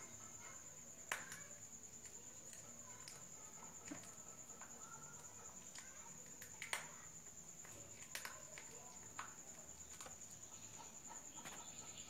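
Faint, steady, high-pitched insect trill without a break, with a few soft clicks scattered through it.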